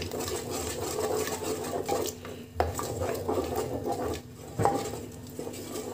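Wooden spatula stirring thick tomato-onion masala in an aluminium pressure cooker, scraping and knocking against the pot with a couple of sharper knocks along the way.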